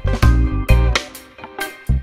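Background music with a bass line in short, stop-start notes and sharp rhythmic hits.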